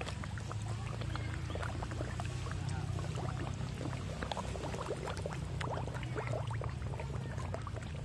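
A crowd of koi splashing and gulping at the water's surface: a busy, irregular patter of small splashes and slurps over a steady low rumble.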